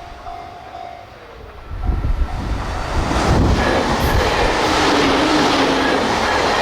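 A JR Kyushu 813 series electric train arriving and passing at speed, close to 100 km/h: the wheel rumble and rail-joint clatter start about two seconds in and stay loud. Before it arrives, a level-crossing bell rings with a pulsing tone.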